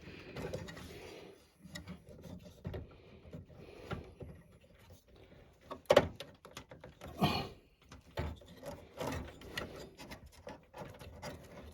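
Cables and plastic connectors being handled inside a computer case: irregular rubbing and scraping with a few sharp clicks, the loudest about six seconds in and another just after seven seconds.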